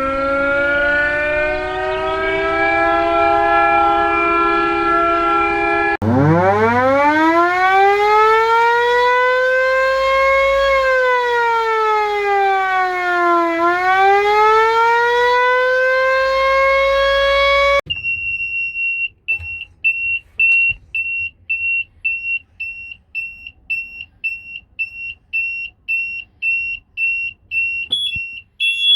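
Wartime air raid sirens: first a siren sounding a steady high note after climbing to pitch, then, after a cut, a siren winding up from silence, sliding down and rising again in a wail. Near the end it cuts to a high electronic alarm beep repeating about twice a second.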